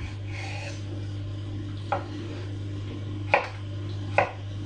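Chef's knife cutting zucchini on a wooden cutting board: three sharp knocks of the blade on the board, the first about two seconds in and the next two coming closer together. A steady low hum runs underneath.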